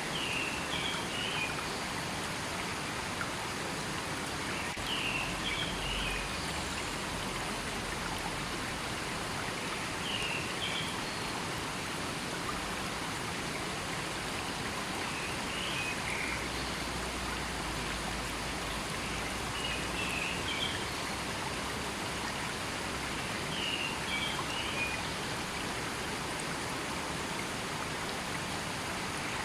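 River water flowing steadily in a forest, with a bird's short call repeating about every five seconds.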